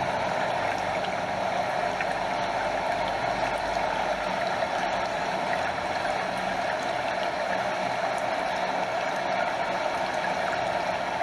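Stream water flowing and cascading over a small waterfall: a steady, even rush with small lapping and trickling sounds.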